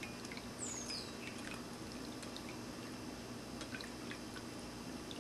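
Ceramic cat drinking fountain running: a steady trickle of water with small drips, with a couple of brief high falling chirps about a second in.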